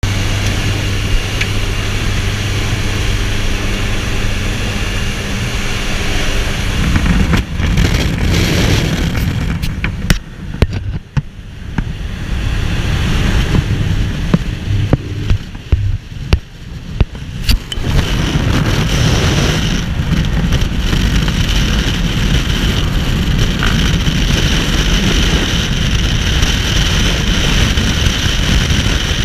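Jump plane's propeller engine droning steadily through the open door; about seven seconds in it gives way to freefall wind buffeting the microphone, uneven with sharp knocks for several seconds, then settling into steady rushing wind noise.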